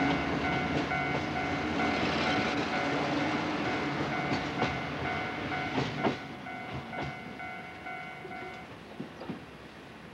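Passenger train passing close by, its wheels clacking over the rail joints. The sound fades away as the last car goes by.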